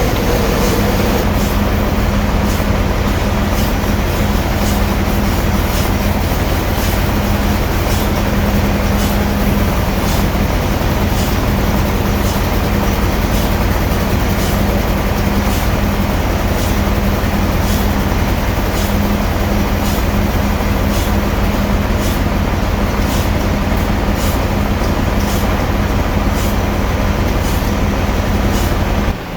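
Heavy sawmill machinery running: a loud, steady mechanical hum with light clicks about once a second. It drops off suddenly at the very end.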